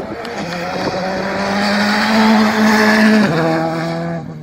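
Rally car passing at speed, its turbocharged engine note rising slowly and growing loud, then dropping sharply in pitch about three seconds in before fading away.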